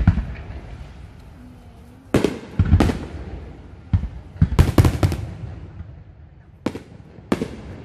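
Aerial fireworks shells bursting overhead in a series of loud, sharp bangs, some singly and several in quick succession around the middle, each followed by a short rumbling echo.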